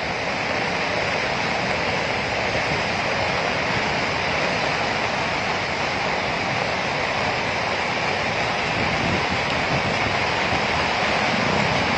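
Steady rushing of a torrent of muddy floodwater pouring overland, the flash flood of a burst dam.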